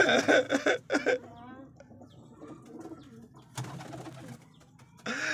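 Domestic pigeons cooing in a loft, with a brief rustle a little past the middle.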